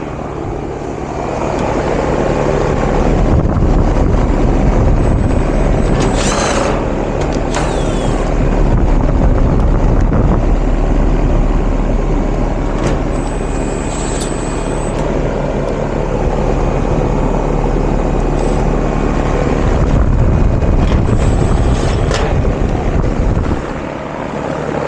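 1996 Ruud R-22 outdoor unit running steadily: the compressor's low hum under the rush of the condenser fan, with a few brief clicks and squeaks of handling along the way.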